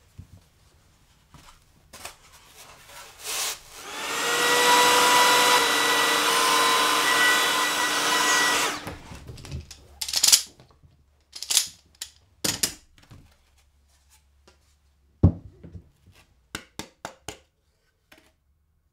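Power tool motor running at speed with a steady whine while cutting plywood, starting about four seconds in and stopping abruptly about five seconds later. Scattered clacks and knocks follow as the workpiece and jig are handled.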